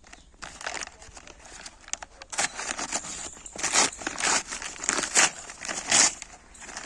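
Plastic parcel packaging being unwrapped by hand, crinkling and rustling in irregular handfuls, louder from about two seconds in.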